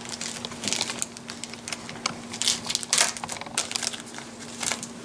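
Foil Yu-Gi-Oh booster pack wrapper crinkling in irregular crackles as it is handled and torn open by hand.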